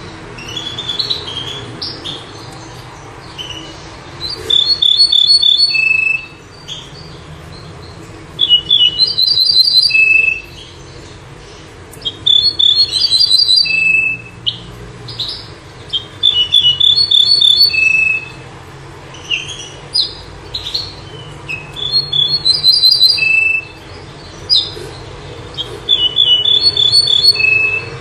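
Ortolan bunting singing: phrases of about two seconds, each a row of repeated ringing notes ending on one lower note, coming every few seconds with a few shorter notes in between. A steady low hum runs underneath.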